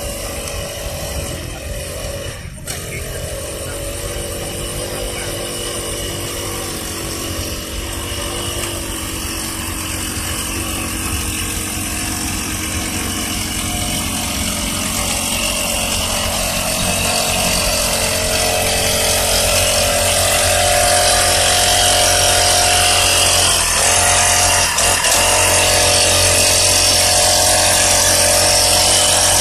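Small engine of a rice-paddy weeding machine running steadily, growing gradually louder, with a brief dip near the end.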